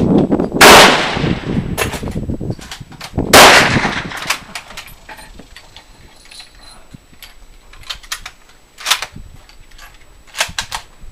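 Two close vintage military rifle shots about three seconds apart, each a sharp crack with a long echoing tail. Softer metallic clicks and clanks of rifle actions being worked follow, with a few sharper cracks near the end.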